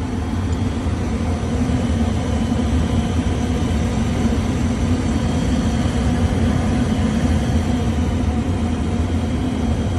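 Gas furnace running: a steady low rumble with a constant hum.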